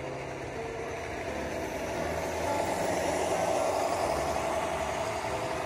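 HO scale model diesel locomotives running past close by: a steady mechanical rumble of motors and wheels on the rails, with a diesel engine sound. It grows louder from about two seconds in, peaks as the locomotives pass, then eases off.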